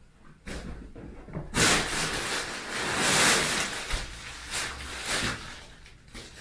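Fabric cat tunnel rustling as a British Shorthair kitten scrambles around inside it, in uneven bursts that start about half a second in, are loudest in the middle, and fade near the end.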